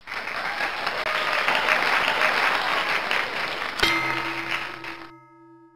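Applause from a crowd, fading out after about four seconds; a held musical note with overtones comes in near the end.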